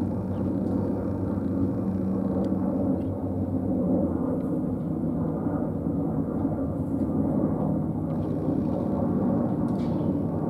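Steady low outdoor rumble of background noise.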